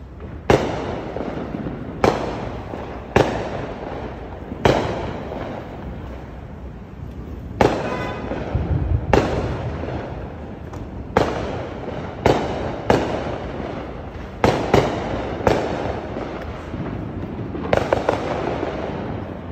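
Fireworks exploding: a string of loud bangs at uneven gaps of one to three seconds, each with a fading echo, with several quick bangs close together near the end.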